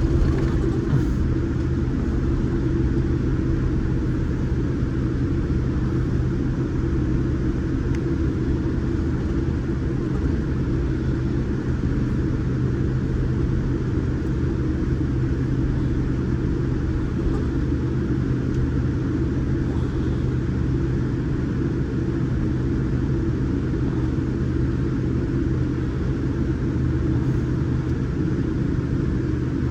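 Steady cabin noise inside a Boeing 787 Dreamliner: a constant low rumble of engine and airflow noise with a steady hum underneath.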